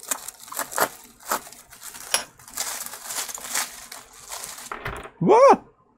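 Bubble-wrap packaging crinkling and crackling as it is slit with a hobby knife and pulled open by hand, in irregular bursts. Near the end a man gives a brief vocal exclamation, rising and falling in pitch.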